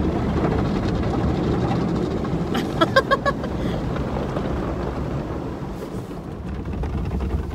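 Automatic car wash running over the car, heard from inside the cabin: a steady rumble and rush of water spraying on the body and windows. A few short high-pitched squeaks sound about three seconds in.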